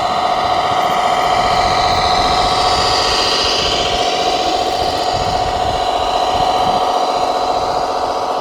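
Radio-controlled model vehicle running: a steady electric motor and gear whine made of several high tones, swelling briefly about three seconds in.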